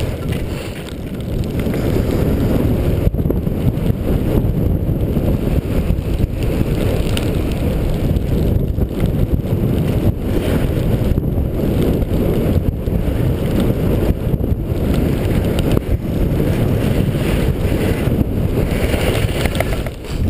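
Wind rushing steadily over the microphone of a helmet-mounted camera while skiing downhill, with the skis sliding over snow beneath it.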